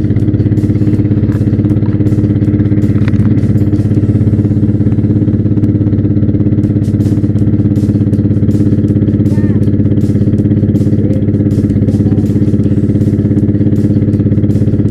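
A motorboat's engine running steadily at a constant speed while under way.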